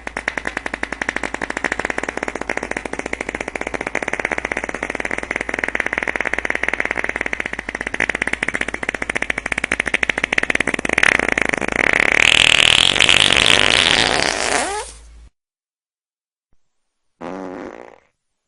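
A long, rapidly sputtering fart sound effect that grows louder and higher-pitched about three-quarters of the way through, then trails off with a falling squeak. After a short silence comes a second, brief fart near the end.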